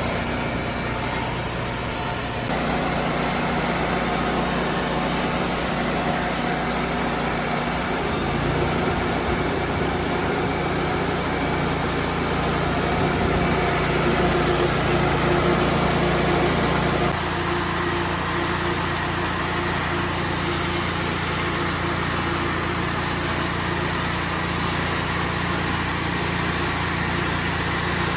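Engine of a portable sawmill running steadily during slabbing, with a constant hum that shifts abruptly in pitch and tone a few times.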